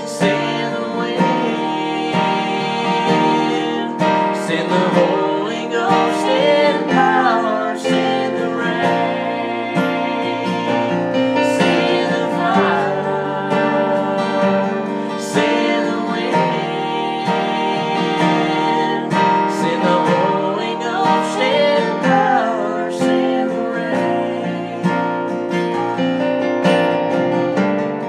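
A man and a woman singing a song together over strummed acoustic guitar.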